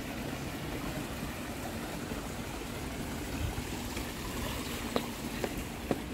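Water running and trickling in a small tiled fountain, a steady splashing hiss, with a few sharp taps near the end.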